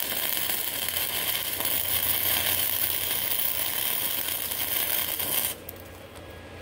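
Wire-feed MIG welder arc crackling steadily as it lays a bead over a crack in a cast iron engine block's water jacket, cutting off about five and a half seconds in and leaving a lower steady hum.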